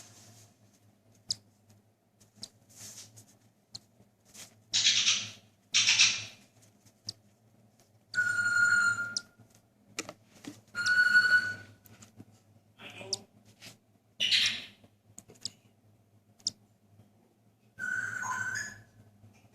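Cockatiel chick calling while being hand-fed from a syringe: short raspy, hissing begging bursts alternate with a few squeaky whistle-like calls about a second long.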